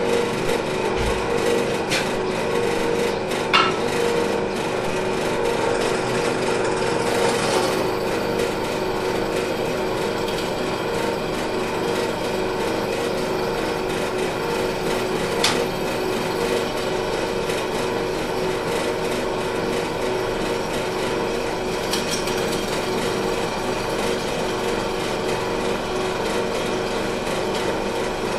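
Small bench drill press running steadily, its motor humming while a small bit drills into a bolt clamped in a vise. A few short clicks come through.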